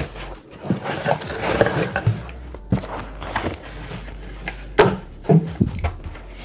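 Cardboard shipping box and egg-crate foam padding handled: irregular rustling and scraping as the foam is pulled out, then a few sharp knocks as the cardboard flaps are pushed open flat.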